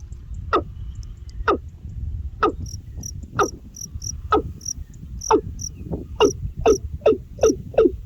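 A bird calling a series of short, sharply falling notes. The notes come about once a second at first, then speed up to two or three a second near the end, over fainter, regular high-pitched insect chirping.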